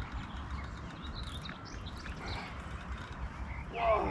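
Faint bird chirps over a low, steady background rumble, with a short exclamation in a man's voice near the end.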